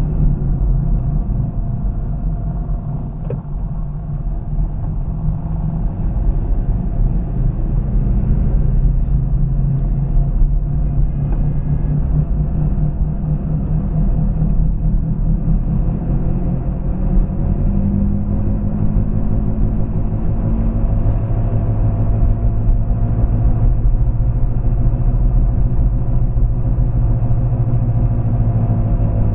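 Car driving, heard from inside the cabin: a steady low engine and road rumble. Over the last ten seconds or so the engine note rises slowly as the car speeds up.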